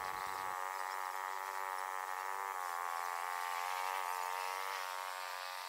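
A boat's motor running steadily, a droning hum that wavers slightly in pitch.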